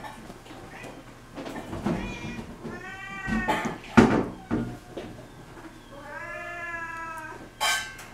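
A cat meowing: two drawn-out meows, the second about a second long. Between and around them come sharp knocks and thumps, the loudest about four seconds in.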